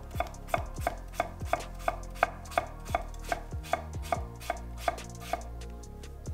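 Masutani VG-1 nakiri slicing through mango and knocking on an end-grain wooden cutting board, a steady rhythm of about three chops a second that stops about five seconds in.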